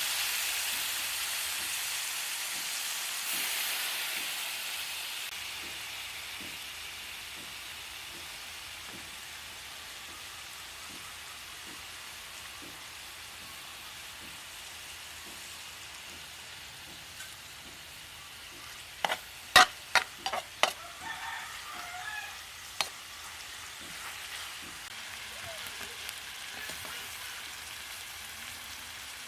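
Squid sizzling as it cooks over heat: a steady hiss, loudest at the start, that settles lower after a few seconds. A quick run of sharp clicks or knocks comes about two-thirds of the way through, with one more shortly after.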